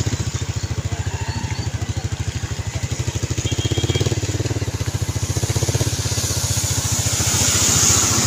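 A vehicle's engine running steadily, its firing heard as a fast, even pulse, as the vehicle travels along.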